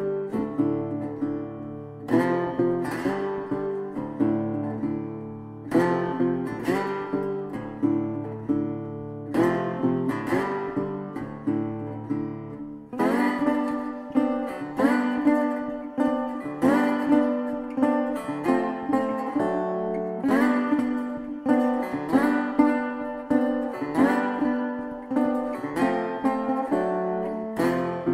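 Background music: an acoustic guitar strumming chords. About 13 s in, the bass drops away and the strumming becomes busier.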